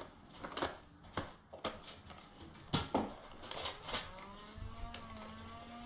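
Scattered sharp clicks and knocks of a Nerf fight: foam-dart blasters firing and darts striking. About four seconds in a steady pitched hum starts and runs on.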